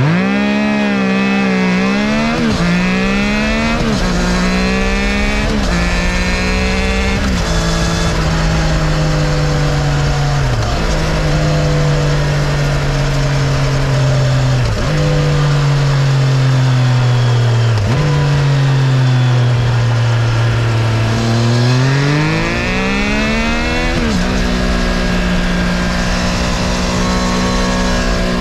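Triumph Tiger 660's inline three-cylinder engine through its standard exhaust. It accelerates hard with four quick upshifts in the first seven seconds, then the note sags slowly off the throttle, broken by a few brief dips. It pulls hard again about three-quarters of the way in and settles to a steady cruise.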